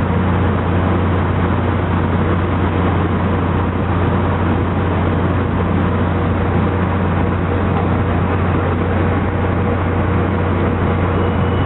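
Tri-Rail commuter train's diesel locomotive standing at the station with its engine running, a steady loud drone with a deep hum underneath that does not change.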